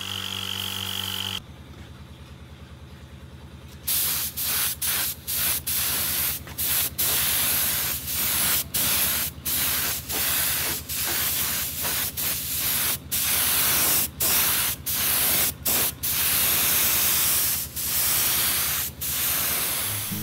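Air spray gun hissing in many short bursts, broken by brief gaps, as it sprays primer onto a steel rack, starting about four seconds in. A small oil-free air compressor runs with a steady low hum underneath.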